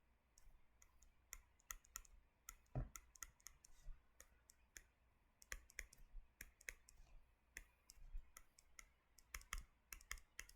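Faint, irregular clicks and taps of hand-drawing on a computer, with one heavier knock about three seconds in.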